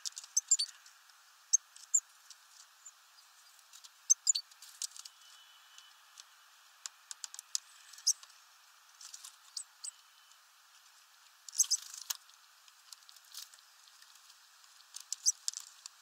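Great tits pecking and cracking sunflower seeds on a wooden feeder tray: an irregular scatter of sharp taps and clicks, with a few quick flurries of several clicks together.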